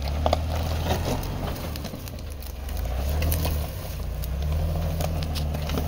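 An off-road vehicle's engine running low and steady, easing off about a second and a half in and picking up again near the three-second mark, with scattered crackles and clicks over it.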